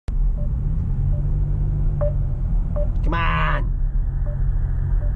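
Steady low rumble of a car's engine and road noise heard inside the cabin, with faint clicks recurring about every second. A brief pitched sound with many overtones comes about three seconds in.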